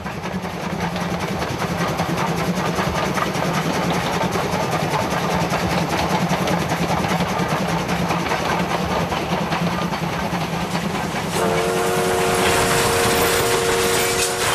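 JNR Class C11 steam tank locomotive (C11 190) running at speed, its wheels and rods rattling steadily over the rails. About eleven seconds in, its steam whistle sounds a steady chord of several tones for about three seconds.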